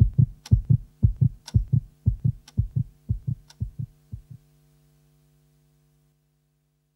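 End of a rap track's instrumental: a low, throbbing beat of about four thumps a second, with a sharp click about once a second, over a steady synth drone. The beat stops about four seconds in and the drone fades out soon after.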